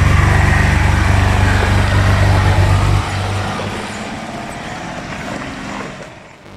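A vehicle engine running loud and steady close by, dropping off sharply about three seconds in, then fading away.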